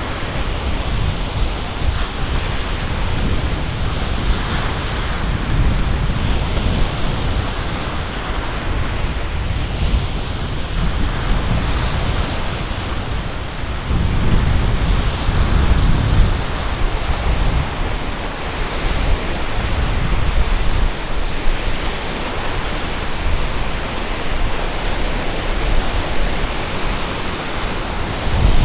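Wind-driven lake waves washing against the shore, with gusty wind buffeting the microphone in low rumbles that swell about halfway through.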